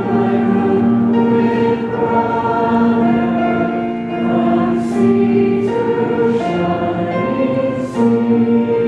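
A choir singing slow, long-held notes, with piano accompaniment.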